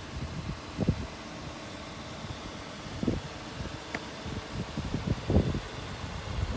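Wind buffeting the microphone outdoors: a low rumble with irregular gusts every second or two.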